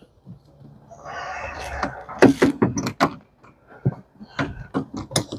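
Screwdriver striking and scraping on a windshield wiper arm to knock it loose: a scraping rub about a second in, then a run of sharp, irregular metal knocks.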